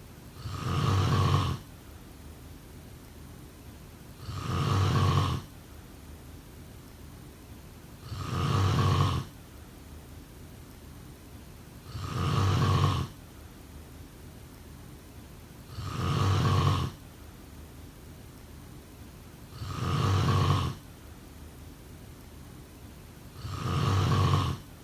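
A person snoring: seven evenly spaced snores about every four seconds, each lasting a little over a second, with a faint steady hiss between them.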